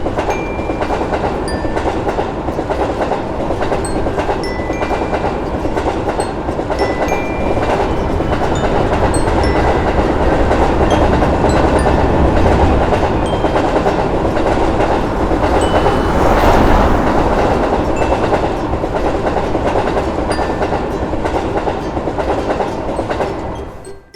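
Train running past with a steady rumble and rail clickety-clack, growing to its loudest about two-thirds of the way through and dropping away suddenly just before the end.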